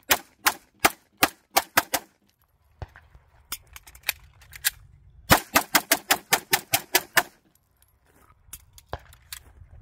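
Semi-automatic pistol shots in rapid strings: about six quick shots, a few spaced ones, then a fast burst of about ten shots at roughly five a second, with fainter scattered pops near the end.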